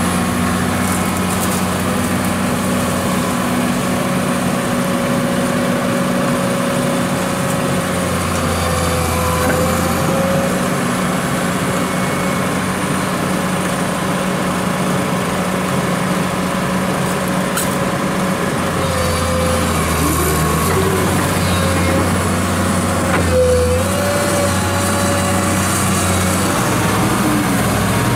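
Komatsu PC210 crawler excavator's six-cylinder diesel engine running steadily under hydraulic load. Its note shifts as the boom and bucket work, and a whine rises and falls over it, while the excavator loads sand into a small dump truck. A short, louder knock comes about two-thirds of the way through.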